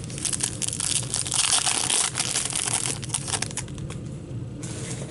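A trading-card pack wrapper crinkling and tearing as it is opened and handled: dense crackling for about three seconds, easing off, then another short burst near the end.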